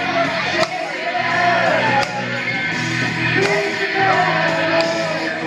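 Karaoke: a music backing track with a person singing along, and a drum hit about every second and a half.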